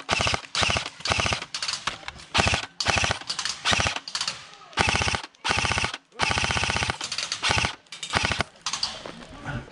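Airsoft rifle firing full-auto in short bursts: over a dozen rapid strings of clicking shots, each under a second, with brief gaps between.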